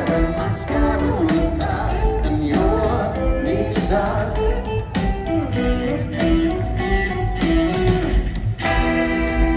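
Rock band playing live over a festival PA, heard from among the crowd: electric guitars and drums, with a high backing vocal sung by the drummer.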